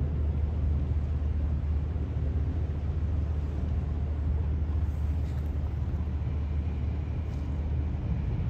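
Steady low rumble of a superyacht's engines as it moves slowly through the harbour. A faint high whine joins about six seconds in.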